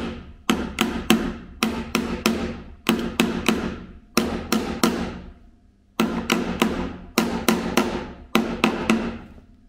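Wooden-handled hammer driving the upper metal spikes of a push-block handle into a wooden board: a run of sharp, briefly ringing blows in quick groups of two or three, with a short pause about five seconds in.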